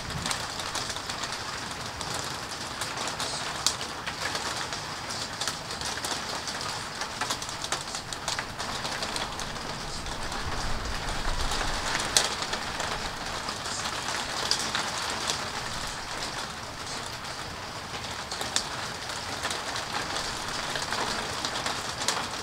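Steady rain falling, an even hiss dotted with scattered sharp drip ticks.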